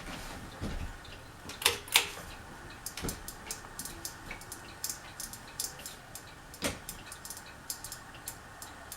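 Scattered light clicks and taps at irregular intervals, a few of them louder, over a faint steady hum.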